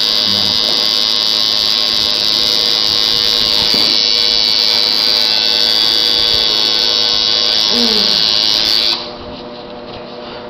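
Tattoo machine buzzing steadily with a high, even whine, cutting off suddenly about nine seconds in.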